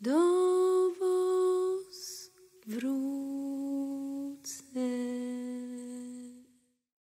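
A woman's unaccompanied voice sings the last long held notes of a góral highland folk song, without clear words. The notes step down in pitch and each scoops up into its note. The voice stops about six and a half seconds in.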